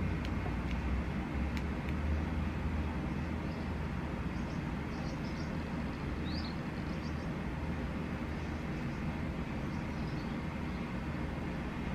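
Steady low background rumble, with a few faint high chirps about halfway through.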